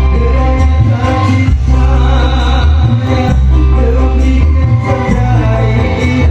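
A song with singing over heavy, sustained bass, played loud through a sound system for a sound check.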